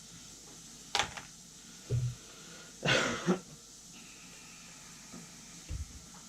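A few short, breathy sounds from a person, coughs or laughs, about one and three seconds in, with a soft low thump between them.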